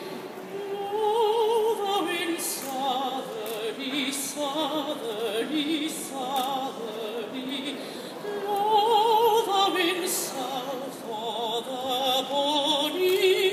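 A single operatic female voice singing a slow, sustained melody with wide vibrato, the notes rising and falling between phrases.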